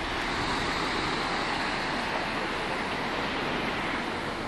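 Sea surf: a wave breaking and washing in, a steady hiss that swells at the start and slowly eases toward the end.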